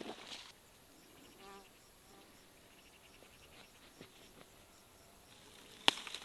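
A flying insect buzzing briefly past about a second and a half in, over faint field ambience with light insect ticking, then a single sharp click near the end.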